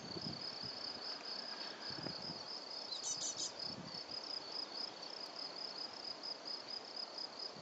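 A cricket-type insect chirping: a steady high trill pulsing about five times a second. A brief high twitter cuts in about three seconds in, over a faint outdoor hiss.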